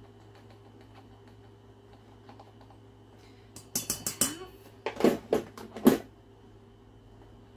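A measuring spoon knocking against the rim of a stainless steel mixing bowl: a quick cluster of light clicks a little over halfway through, then four sharper knocks about a second later.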